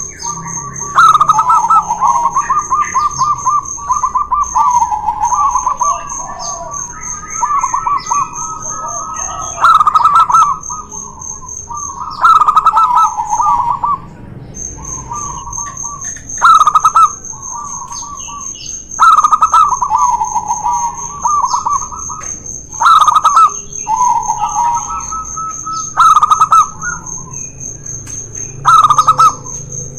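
Zebra doves (perkutut) singing back and forth, two birds trading their rapid staccato cooing phrases. Each phrase opens with a loud note and runs into a fast string of notes, with a new phrase every two to three seconds.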